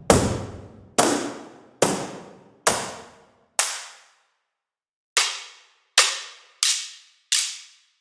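Sampled cardboard-box percussion from a Kontakt virtual-instrument library, played as nine single hits, each with a short reverberant tail. The first few hits carry a deep low thud; after a pause of about a second and a half in the middle, the later hits are lighter and brighter.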